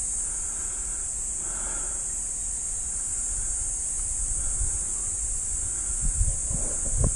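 A steady, high-pitched insect chorus in the bush, with a low rumble beneath it. There are a few soft thumps near the end.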